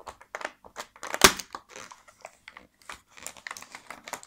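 Cardboard door of a Kinder advent calendar being pressed in and torn open with the fingers: irregular crackling and crinkling of the card, with one sharp snap about a second in.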